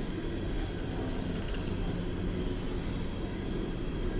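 Slow-moving coal train rolling past, a steady low rumble of its cars' wheels on the rails.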